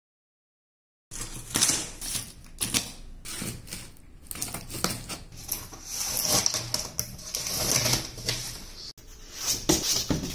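Scissors snipping and scraping through packing tape on a large cardboard shipping box, an irregular run of sharp clicks starting about a second in, then cardboard flaps being pulled open near the end.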